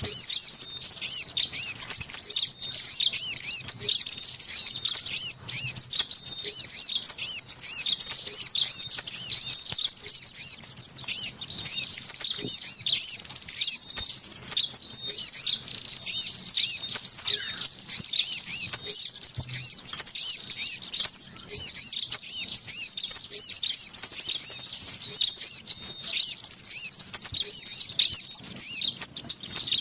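Yellow-vented bulbul (trucuk) calling: a dense, unbroken stream of short high chirps and twitters that overlap with no pauses.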